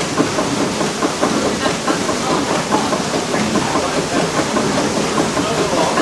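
Water-powered mill machinery running: a large horizontal wheel spinning on a vertical shaft amid the turning gearing, with a steady, dense clatter of knocks and rattles.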